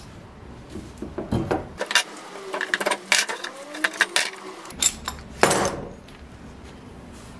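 Steel bar clamps being loosened and taken off a cleaver's wooden handle: a run of metallic clicks and clinks, with a louder knock about five and a half seconds in as a clamp is put down on the wooden workbench.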